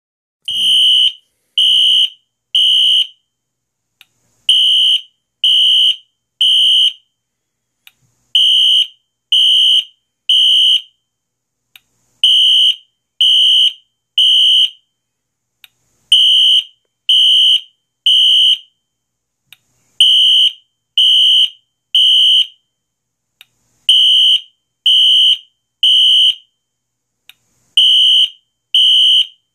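Wheelock NS-24MCC fire alarm horn/strobe sounding its temporal code-3 pattern: three high-pitched horn blasts of about half a second each, then a pause of about a second and a half, repeating about every four seconds. A faint click falls in each pause.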